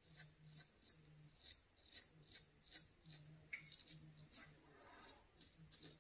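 Safety razor scraping lathered stubble on the chin in short, gentle strokes, a faint rasp repeated several times a second.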